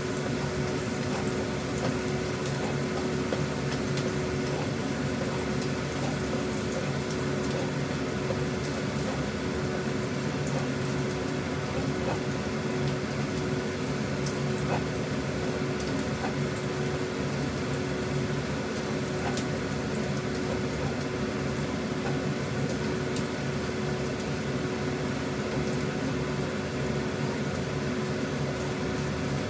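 Minced garlic frying in oil in a nonstick wok, sizzling steadily while a spatula stirs it, with a few light clicks of the spatula on the pan. A steady hum with a constant tone runs underneath.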